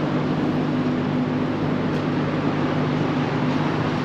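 Steady road traffic noise from a busy multi-lane road, with a steady low hum running under it.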